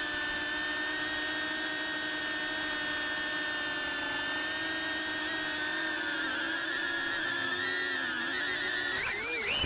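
Cinewhoop FPV drone's motors and ducted propellers whining steadily. The pitch starts to waver about two-thirds of the way through and jumps up and flutters near the end as the throttle changes.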